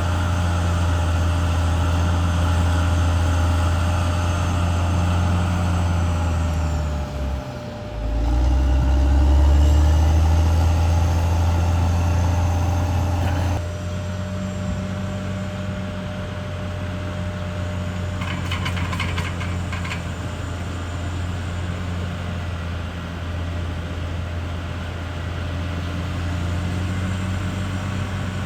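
CAT D6R bulldozer's diesel engine running, with its note sagging and then climbing back to its loudest as it works. About halfway through it drops suddenly to a quieter, steady run, and a brief higher squeal comes a few seconds later.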